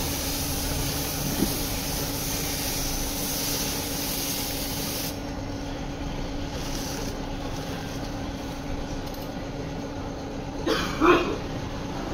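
Air-fed gravity-cup paint spray gun hissing steadily as it sprays paint, cutting off about five seconds in. A steady low hum runs underneath, and a couple of short louder sounds come near the end.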